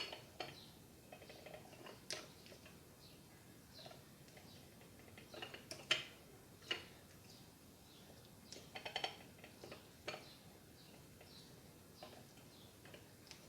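Faint, scattered clinks and taps of kitchen utensils against a bowl as juice is pressed through a strainer, in small clusters a few seconds apart, the loudest about six seconds in.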